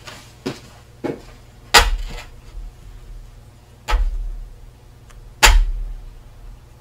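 Handling knocks on a metal sheet: a few light clicks, then three sharp knocks with a dull thud, one about two seconds in, one about four seconds in and the loudest near the end, as the sheet is laid down and a silicone rubber mould block is set on it.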